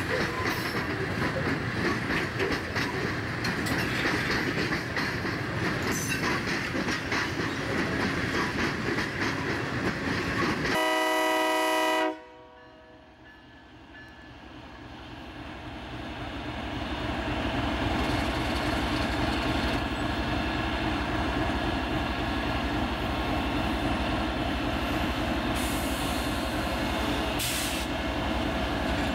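A freight train rolls along the rails, its wagons rattling over the track. About 11 seconds in, a diesel locomotive's air horn sounds one chord for about a second and cuts off abruptly. After that a diesel locomotive's engine rumble starts quietly and grows louder as it approaches, then runs steadily.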